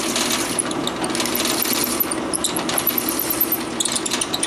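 Drill press running a pen mill reversed with sandpaper glued to its face, a hand-held wooden pen blank pressed against it: a steady motor hum under a continuous gritty sanding scrape as the blank's end is trued and the epoxy is cleaned from the brass tube.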